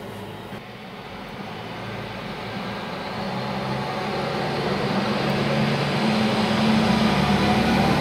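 Aerial ladder fire truck's diesel engine running as the truck pulls up and passes close by, growing steadily louder from about a second in.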